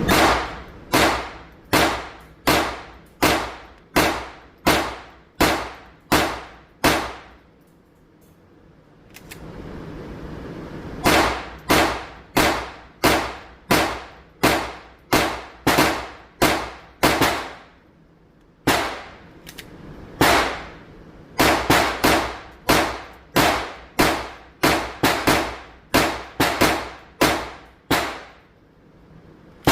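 .22LR semi-automatic pistol (Polymer 80 frame with an Advantage Arms .22LR slide conversion) firing CCI Blazer 40-grain rounds in steady strings of shots, roughly one to two a second, each crack followed by a brief ring-out. There is a pause of a few seconds about a quarter of the way in, then firing resumes, speeding up near the end.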